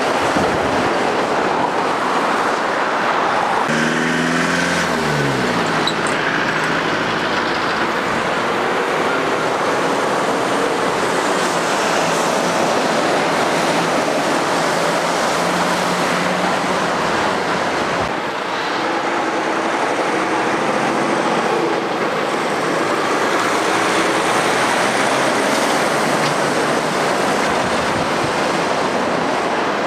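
Road traffic dominated by diesel articulated lorries driving past close by: engines and tyre noise, with one engine note falling in pitch about four seconds in.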